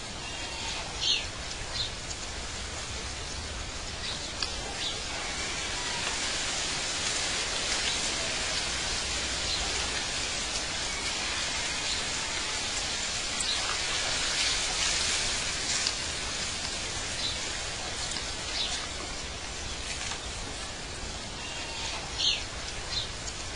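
Outdoor nature ambience: a steady hiss with short bird chirps scattered through it, about eight in all.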